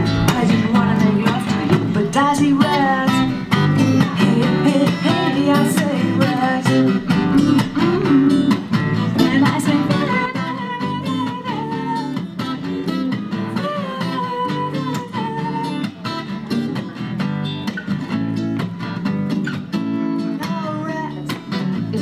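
Live acoustic guitar strummed with electric bass, an instrumental passage with no sung words. It gets somewhat quieter about ten seconds in.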